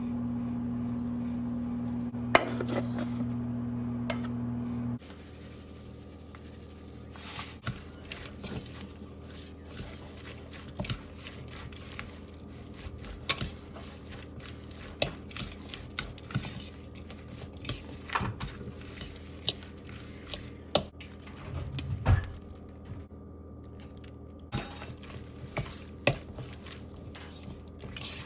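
Dishes and utensils clinking and clattering in irregular, separate knocks. A steady hum runs underneath for the first five seconds, then cuts off suddenly.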